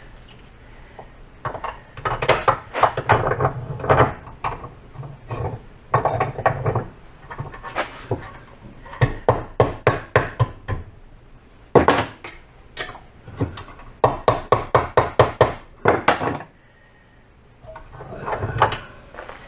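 Hammer blows, struck in quick runs of several strikes a second with short pauses between, bending over the tab of a home-made bracket.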